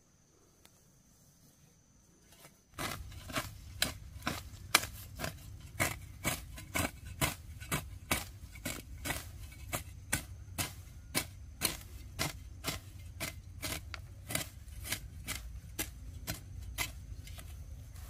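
Crisp, even cutting strokes, about two a second, starting about three seconds in, over a low steady rumble.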